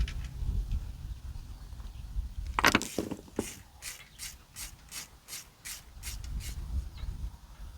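Ratchet wrench clicking in an even run of about nine strokes, roughly three a second, after a louder metallic clatter about three seconds in, as bolts are run in.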